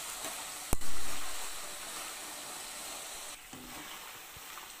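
Boneless chicken pieces sizzling steadily as they fry in groundnut oil in a metal pan, stirred with a wire spider skimmer, their water still cooking off. A single sharp knock about a second in.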